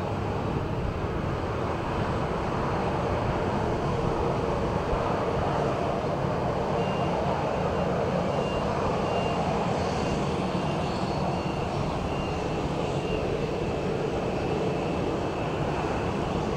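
Boeing 737-800 jet engines (CFM56) running with a steady, even roar. A faint high whine comes and goes over it from about seven seconds in.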